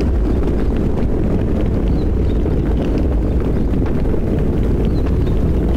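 Thunderstorm: a steady low rumble of thunder with rain, and scattered drops ticking on top.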